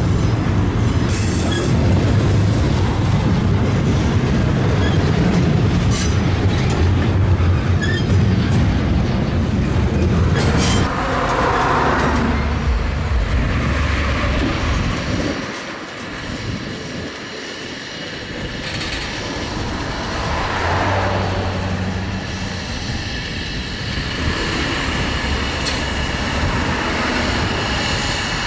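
Freight cars of a Norfolk Southern train rolling past close by: a steady low rumble of steel wheels on rail, with wheel clicks. The sound eases somewhat about halfway through, then builds again.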